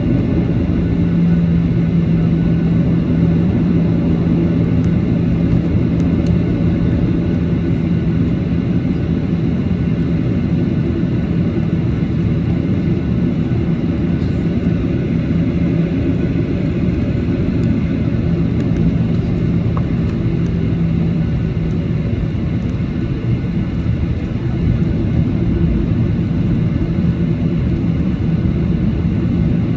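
Boeing 737-800's CFM56 jet engines running steadily, a continuous low rumble with a constant hum and no change in power.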